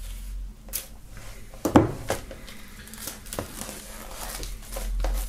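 Plastic shrink wrap on an LP sleeve being slit with a knife blade and pulled open: crinkling of the film and scattered small ticks, with one sharper knock a little under two seconds in.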